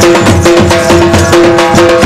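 Loud music with fast drum beats under a melody line of held, repeated notes.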